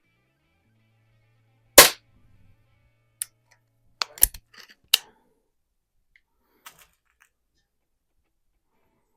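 Daisy model 62 underlever spring-air pellet pistol firing once, a single sharp crack about two seconds in, followed by a few lighter clicks spread over the next few seconds.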